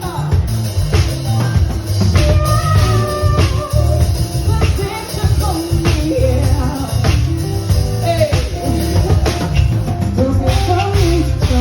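Live soul band playing a groove: drum kit, electric bass and keyboards, with some singing.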